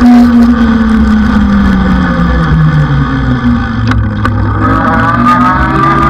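A motor hum that falls steadily in pitch for about three seconds, then rises again near the end, over a low wind rumble.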